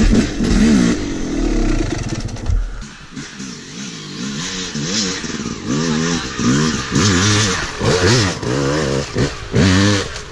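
Yamaha YZ250 two-stroke dirt bike engine revving hard. It runs loud and steady for the first three seconds. After that comes a series of quick throttle blips, each rising and falling in pitch and coming faster near the end, as the bike climbs and hops a log.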